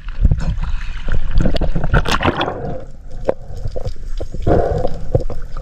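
Seawater gurgling and sloshing against a diver's camera, with many irregular small knocks.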